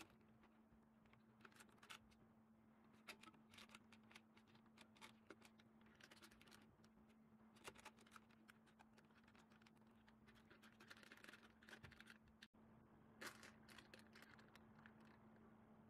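Near silence: faint scattered scratches and clicks over a low steady hum.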